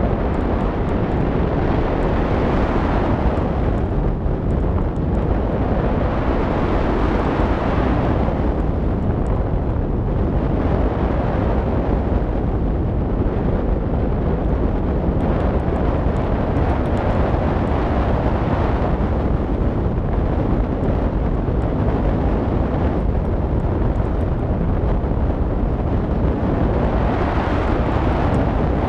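Wind rushing over the microphone of a camera mounted on a gliding hang glider's wing: a steady, loud buffeting roar that swells and fades every few seconds.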